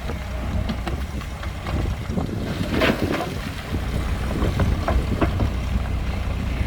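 Heavy diesel earthmoving machinery running with a steady low rumble, with scattered clanks and rattles and a louder rattling stretch about three seconds in.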